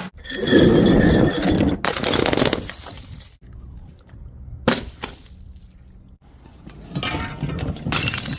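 Glass bottles smashing: several separate breaks in quick succession, each a sudden crash followed by shattering and the clinking of glass shards, with a single sharp crack about halfway through.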